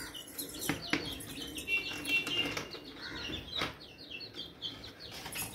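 Young chickens peeping over and over, a run of short, high, falling chirps, with a few sharp knocks in between.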